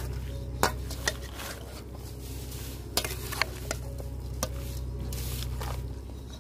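A metal spoon stirring and scraping through a metal bowl of raw pork pieces mixed with sliced onion, spices and mustard oil, with a few sharp clinks of spoon against bowl.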